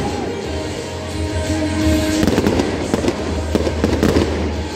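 Aerial fireworks bursting overhead in clusters of bangs, about two seconds in and again around four seconds, with music playing throughout.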